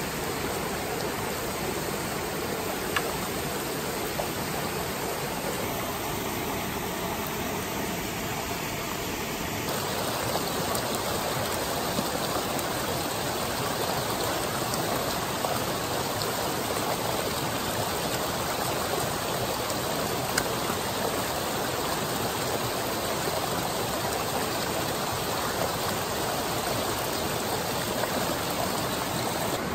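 Small rocky brook running over riffles and a little cascade: steady rushing water, a little louder and brighter from about ten seconds in.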